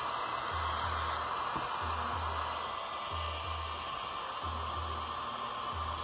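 Miniature desktop vacuum cleaner running steadily: a small motor's whir with a constant airy hiss.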